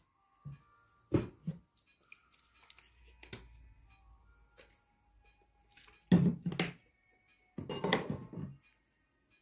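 Knocks and thuds of bottles and small objects being handled on a wooden dressing table, a few single taps early on and two louder clusters about six and eight seconds in, over faint music.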